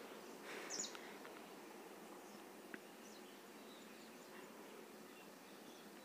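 Near silence: faint room tone, with one brief faint high sound just under a second in.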